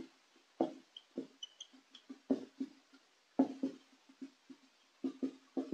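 Whiteboard marker writing on a whiteboard: a quiet string of short squeaks and taps, several a second, as the pen strokes the board.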